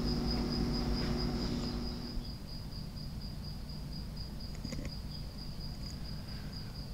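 Crickets chirping in a fast, steady pulse over a low background rumble, with a couple of faint ticks about two-thirds of the way through.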